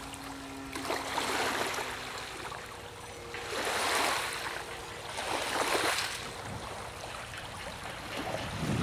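Small lake waves washing against the shore in three swells, about one every two seconds, over a faint steady hum.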